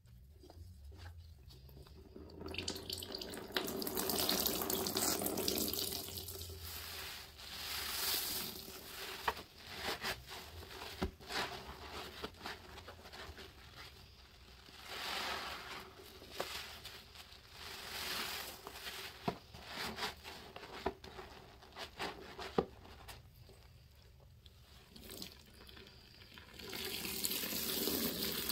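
Large foam sponges soaked with dish soap squeezed again and again by rubber-gloved hands: wet squelching and crackling suds in swells a couple of seconds apart, with soapy liquid running and dripping into a plastic tub.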